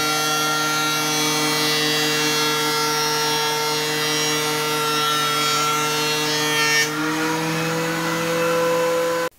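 DeWalt benchtop thickness planer running with a steady, many-toned whine as a red oak board is fed through and planed down from 3/4 inch toward half an inch. Its pitch steps up slightly about seven seconds in, and the sound cuts off suddenly near the end.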